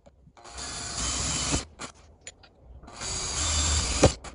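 Cordless drill with a metal drill bit running in two bursts of about a second each, boring out the hole in a steel bottle cap, with a sharp knock as the second burst ends.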